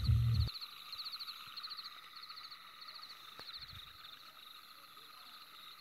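Night-time animal chorus: short, high chirping trills repeating about twice a second over a steady drone. A low rumble cuts off abruptly about half a second in.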